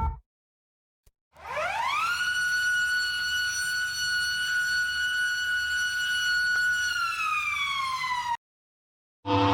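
Warning siren: after about a second of silence it rises quickly in pitch to one steady tone, holds it for about five seconds, then begins to fall and cuts off abruptly.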